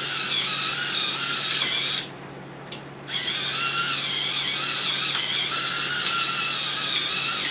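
Electric pepper grinder running on a white and black pepper blend: a steady small-motor whir that stops for about a second, about two seconds in, then starts again.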